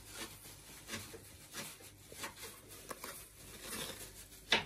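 Food packages and containers being handled and set down on a table: faint rustles and light taps, with one sharper click near the end.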